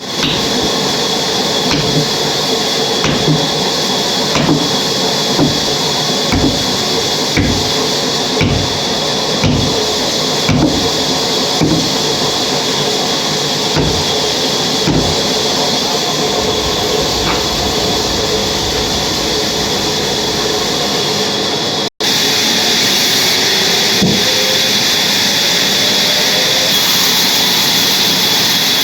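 Sawmill saw running steadily with a constant high whine while cutting a large log. Knocks come about once a second for the first twenty seconds, then stop after a brief cut in the sound.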